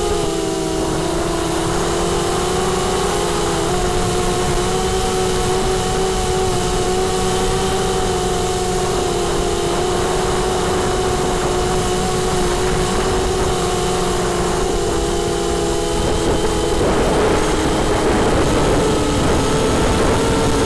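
Multirotor drone's electric motors and propellers whining steadily, recorded close up by the onboard camera; the pitch shifts slightly with throttle and wavers more near the end.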